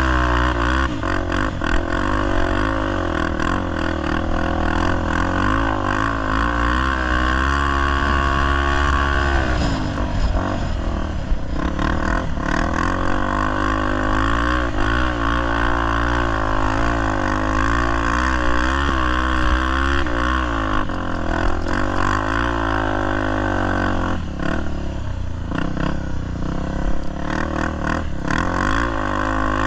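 Single-cylinder Honda Tornado enduro motorcycle engine revving up and down as it is ridden hard, its pitch rising and falling continually with a brief drop about ten seconds in. The bike is being ridden without a working clutch.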